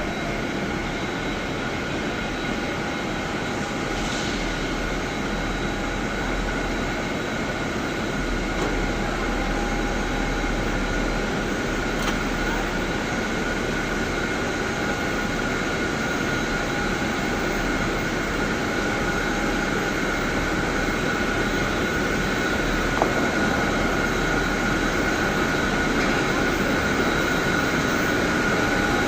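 Jet aircraft engine running steadily: a constant high whine over a rushing hum, slowly growing louder.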